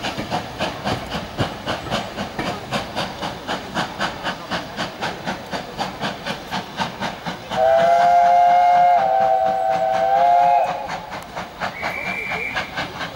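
Steam locomotive working a train, its exhaust beating in a rapid, even rhythm. About seven and a half seconds in, its chime whistle sounds a loud chord for about three seconds, stepping in pitch partway through, and a short higher tone follows near the end.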